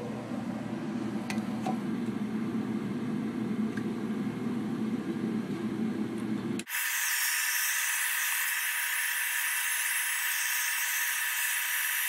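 Handheld hair dryer blowing, a steady rush of air. It is low and rumbling at first, then about six and a half seconds in it switches abruptly to a brighter hiss with a steady motor whine.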